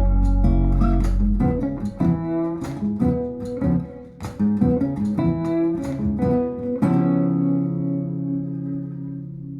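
Guitar music played back over B&W DM603 S3 floorstanding loudspeakers, heard in the room: plucked notes over deep bass, then a held chord about seven seconds in that rings and slowly fades.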